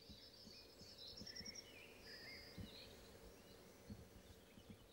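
Faint birdsong: small birds chirping and whistling, with a quick trill of repeated high notes about a second in, over faint background noise.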